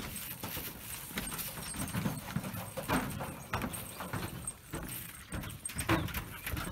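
Footsteps and several dogs' paws on a wooden boardwalk, a stream of irregular knocks on the planks.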